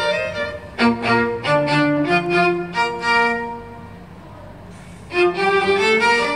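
String quartet (two violins, viola and cello) playing a bowed passage of held notes and shifting chords. The music falls to a hush about four seconds in and comes back in full about a second later.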